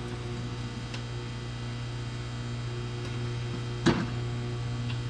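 Hamilton Beach microwave oven running with bacon inside: a steady low hum with a few faint ticks, and one sharp pop or click about four seconds in.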